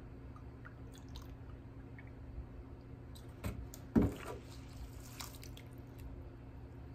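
Milk trickling as it is poured from a plastic jug into a metal measuring cup and then into a bowl of oats. A sharp knock comes about four seconds in, as the jug is set down on the counter.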